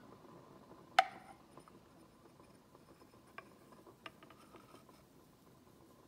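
A single sharp clink with a short ring about a second in, as the steel milk pitcher taps the glass cup, then a couple of faint ticks against a quiet background.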